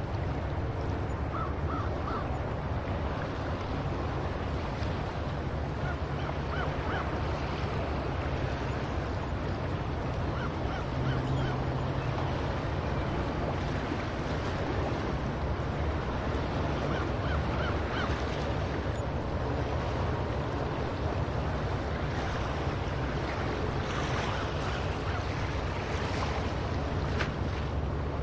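Seagulls calling now and then, in short cries scattered through the stretch, over a steady wash of ocean surf and wind with a deep rumble underneath.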